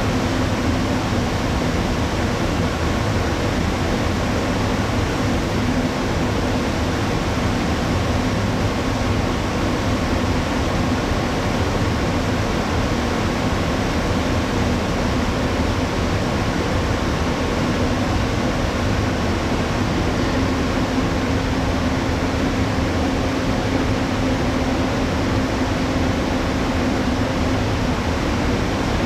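Steady hum and rush of a moored passenger ship's onboard ventilation and machinery, an even noise with a faint constant drone running under it.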